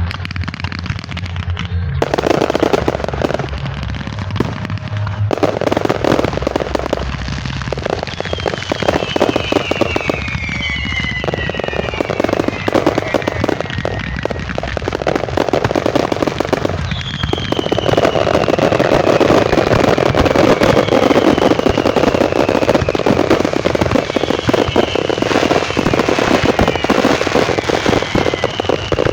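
Fireworks going off in a dense, continuous barrage of crackling bangs, with several whistles that fall in pitch. It grows louder about two-thirds of the way through.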